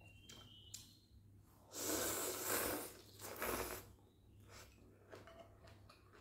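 A person slurping rice vermicelli noodles off chopsticks in two long slurps, the first starting about two seconds in and a shorter one about three and a half seconds in, with faint clicks around them.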